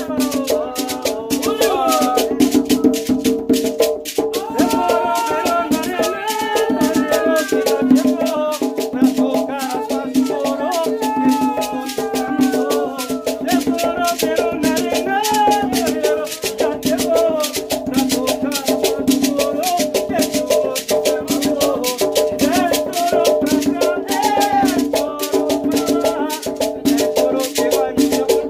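Afro-Brazilian ceremonial music for the Exus: fast, steady percussion with shaken rattles, and voices singing a chant over it.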